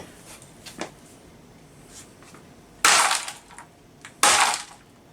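Two heavy axe blows on the metal video head drum of an 8mm camcorder, about a second and a half apart. Each is a sharp crack with a short ringing tail. The solid drum only dents.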